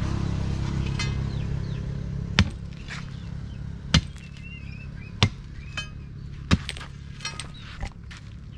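Steel rebar digging bar jabbed point-down into a pile of broken stone and brick, each blow a sharp crack as the fragments chip and scatter. About six strikes come every second or so, then a few lighter taps near the end.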